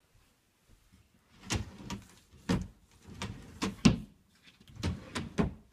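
A series of sharp knocks and clacks at an uneven pace, about nine of them, starting about a second and a half in.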